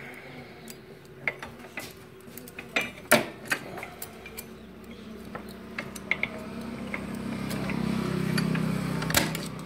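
Irregular metallic clicks and clinks of steel gears and shafts being handled and moved on the opened gearbox of a Bajaj Chetak scooter engine, the loudest knock about three seconds in. A low hum swells from about six seconds in and fades just before the end.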